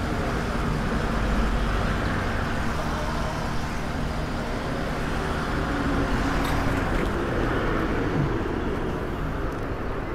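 Steady road traffic noise: a continuous even rumble of vehicles passing on the street.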